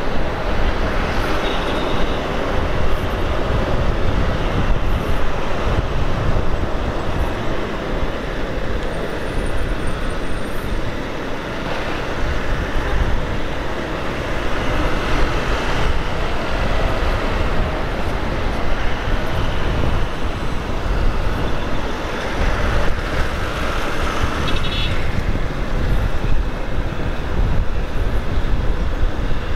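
Motorcycle riding in city traffic: steady wind rush on the microphone over the engine and the noise of surrounding vehicles.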